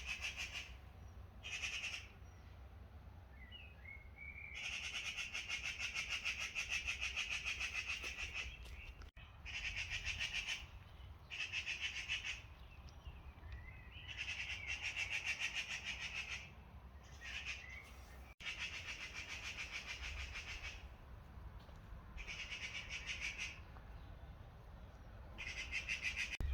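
A rasping, finely pulsed buzz from an unseen source, the 'annoying sound', repeating in bursts of about one to four seconds with short gaps. A few faint bird chirps come in between.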